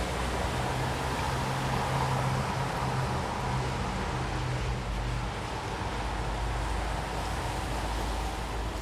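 Night outdoor ambience with light rain: a steady, even hiss of gentle rainfall. A low hum sits underneath during the first half.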